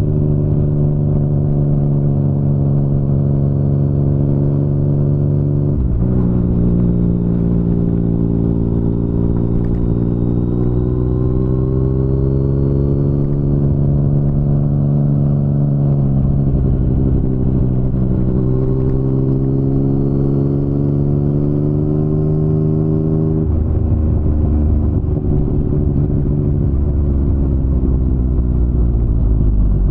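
2019 Yamaha MT-09's three-cylinder engine running through an Akrapovic carbon full-system exhaust while riding. The engine pitch rises and falls gently, with a gear change about six seconds in, a shift in the rumble near 23 seconds, and the pitch falling away near the end.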